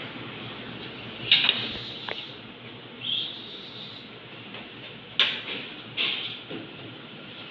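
Three sharp knocks or clacks from handling at the exam table, about a second in, five seconds in and again just after, over a steady hiss, with a short soft hiss about three seconds in.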